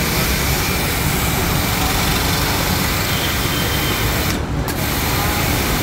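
GMP 2100 electric pressure washer (3 HP, 160 bar) running, its motor and pump droning under the hiss of the high-pressure water jet. The jet's hiss drops out for a moment about four and a half seconds in while the motor keeps running.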